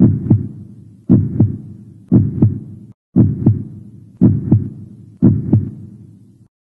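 Heartbeat sound effect: low double thumps (lub-dub) about once a second, six in all, then it cuts off suddenly.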